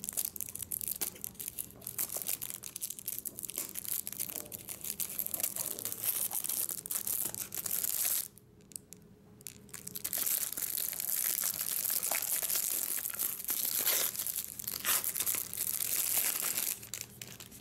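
Clear plastic shrink-wrap crinkling and tearing as it is cut with scissors and peeled off a small cardboard box. The crackling drops away for about two seconds just after the middle, then resumes.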